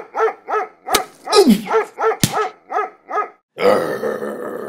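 A dog barking in quick, even yaps, about four a second for some three seconds, with two sharp clicks among the barks. A longer, noisier sound follows about three and a half seconds in.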